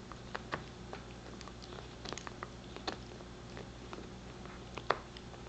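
Pembroke Welsh Corgi gnawing a deer antler base: irregular sharp clicks of teeth on hard antler, the loudest near the end.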